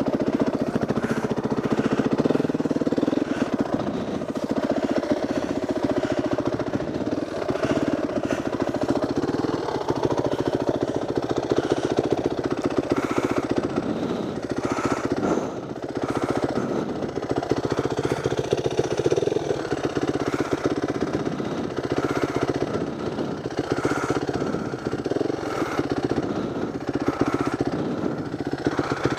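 Yamaha WR450F single-cylinder four-stroke dirt bike engine running steadily at low revs, with a rapid even thumping.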